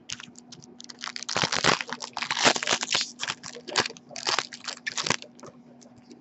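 Foil wrapper of a 2011-12 Panini Contender hockey card pack being torn open and crinkled by hand, a dense crackling that stops about five seconds in.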